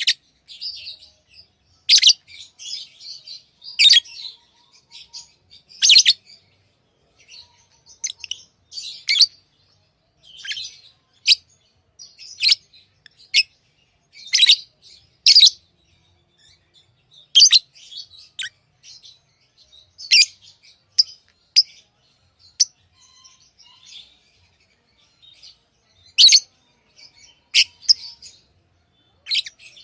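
Pet lovebirds chirping: sharp, high chirps every second or two, with softer chatter in between.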